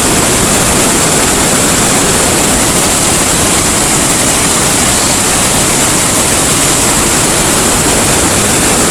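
Big waterfall: a loud, steady rush of falling water close to the microphone.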